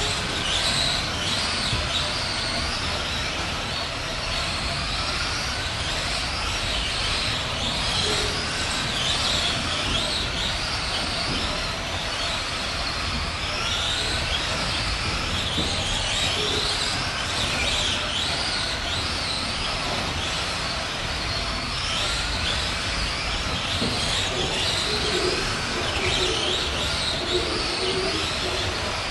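Several Tamiya Euro truck RC racers' electric motors whining, the pitch rising and falling over and over as the trucks accelerate and slow around the track, over a steady low rumble.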